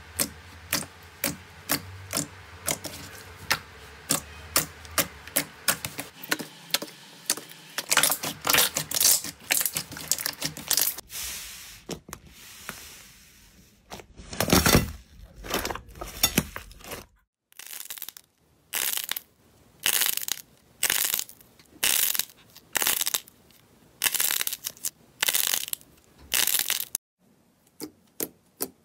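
Hands pressing, poking and squeezing slime, giving quick sharp clicks and pops several times a second, then longer squelching bursts about once a second in the second half.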